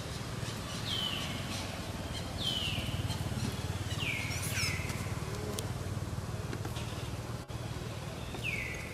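Newborn pig-tailed macaque giving high-pitched cries, about five short calls that each drop in pitch, over a steady low hum.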